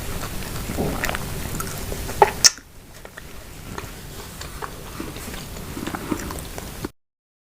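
Close-miked chewing and mouth sounds of someone eating noodles with grilled chicken pieces, with two sharp clicks about two seconds in. After that the chewing goes quieter, and the sound cuts out entirely near the end.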